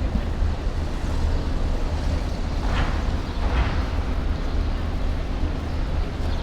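Outdoor ambience: a steady low rumble under a general noisy din, with two short hissing bursts near the middle.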